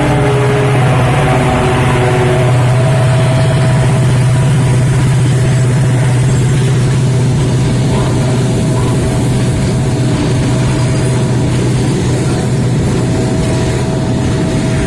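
Railway locomotive engine running with a steady heavy low drone, while a horn dies away in the first second or two.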